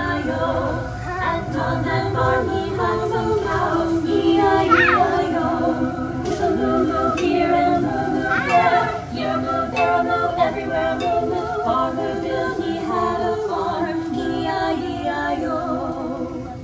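Recorded group singing, several voices in a song, played over loudspeakers, with a couple of sliding vocal swoops.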